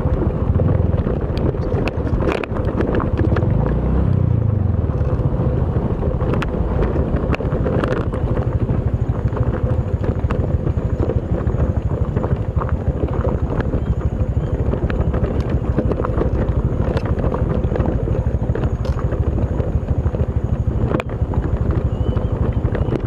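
Motorcycle engine running at riding speed, with wind rushing over the microphone and scattered sharp knocks.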